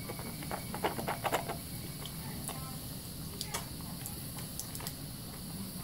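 Wet squelching and crackling of soap lather as hands work a bar of soap, with a quick run of squishy clicks about a second in and a few more later. Under it, the steady trickle of a running faucet.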